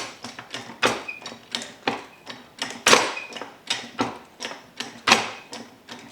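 Hydraulic floor jack being pumped by its handle, a sharp metallic clack about once a second with lighter clicks between the strokes. The jack is running out of lift after an inch or two, which the owner suspects comes from lost oil or from pumping air.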